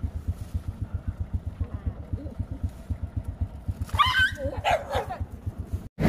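Small step-through motorbike engine idling with a steady, rapid low putter. A short, high-pitched wavering cry cuts in about four seconds in.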